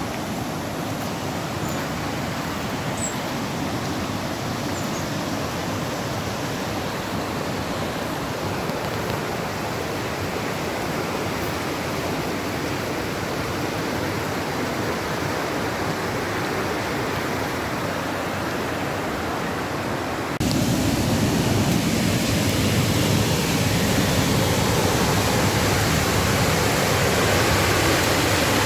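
Steady rush of falling water from a waterfall. It becomes louder and fuller about twenty seconds in.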